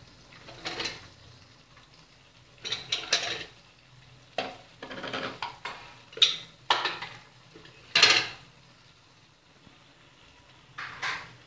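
Slotted metal spatula scraping and clanking against a steel wok while stir-frying, in about seven irregular strokes and bursts. A faint steady low hum runs underneath.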